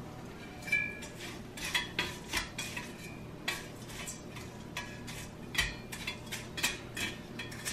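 A utensil clinking and scraping against a strainer and bowl in irregular sharp knocks, some with a short metallic ring, as fried minced garlic is worked in the strainer to drain off its oil.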